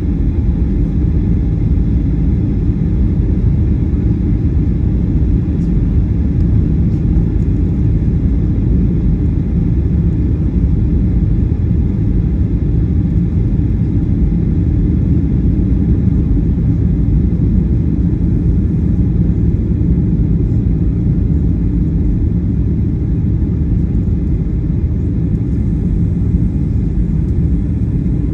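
Cabin noise inside a Boeing 737-800 on final approach: a steady low rumble of airflow and the CFM56-7B engines, with faint steady tones above it.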